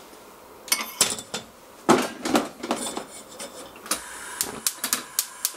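A black iron frying pan set down on a gas hob's metal burner grate with several sharp metallic clanks. From about four seconds in, a steady gas hiss comes in under a run of rapid ignition clicks as the burner is lit.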